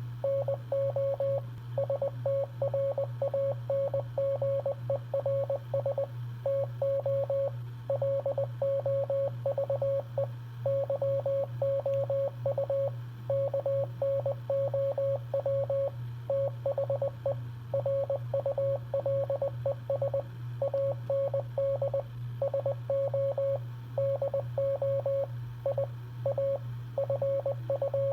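Morse code sent as a single mid-pitched beep, keyed on and off in quick dots and dashes with short gaps between letters and words, over a steady low hum.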